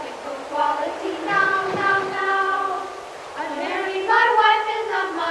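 A class of schoolchildren singing a repetitive nonsense folk song together, with sustained sung notes.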